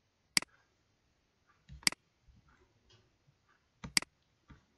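Three sharp computer mouse clicks, about a second and a half to two seconds apart; the second and third each come just after a softer knock.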